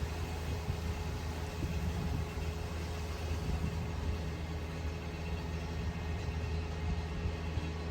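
Steady low mechanical hum of running machinery, unchanging throughout, with a constant background hiss.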